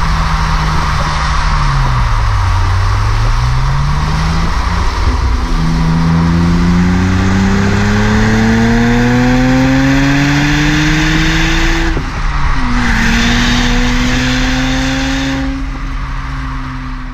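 BMW 135i's N54 twin-turbo straight-six heard at the tailpipes through a Milltek rear silencer while driving: the engine note dips and comes back up, then climbs steadily under acceleration, drops sharply at an upshift about twelve seconds in, and climbs again before fading out. Steady wind and road rush run under it.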